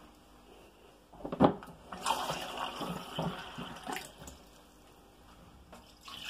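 Water handling with a plastic cup: a sharp knock about a second and a half in, then water running and splashing for about two seconds. Near the end, water is poured from the cup into an oven roasting tray.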